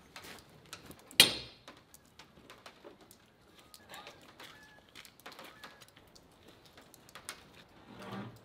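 One sharp knock about a second in, then faint footsteps on gravel fading away, with a few faint bird chirps.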